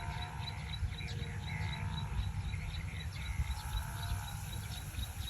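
Forest ambience: an insect chirping in a steady high pulse, about three to four chirps a second, with short bird calls and a continuous low rumble underneath.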